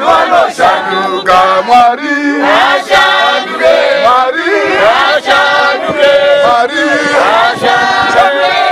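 Church choir of men and women singing together, many voices overlapping at a loud, steady level.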